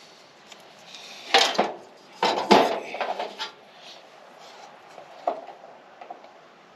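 Metal tools and parts handled and set down on a workbench: a few sharp clinks and clatters, the busiest stretch about two to three and a half seconds in.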